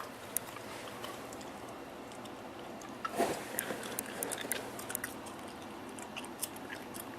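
A newly built desktop PC running just after its first power-on, with a steady whir from its fans. Scattered light clicks and handling noises come about three to four and a half seconds in.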